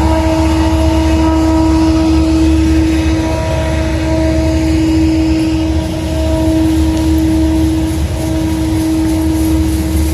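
Freight train of tank cars rolling past: a steady low rumble of wheels on rail with a constant droning tone over it.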